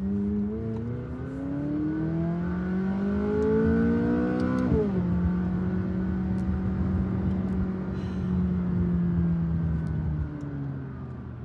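McLaren twin-turbo V8 accelerating hard: the engine note climbs steadily for about four seconds, drops sharply at an upshift, then holds steady at cruising speed and eases off near the end.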